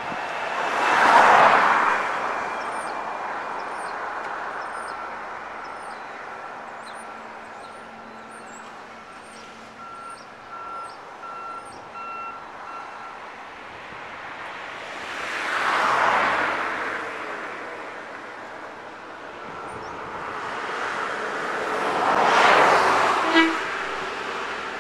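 Road vehicles passing close by three times, each a rush that swells and fades over about two seconds, over steady background noise; a very short horn toot near the end.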